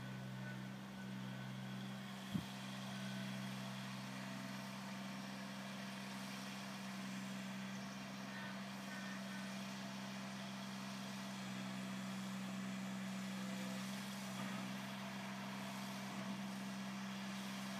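Small garden tractor engine running steadily at a distance, a constant low hum as it moves snow, with one sharp click about two seconds in.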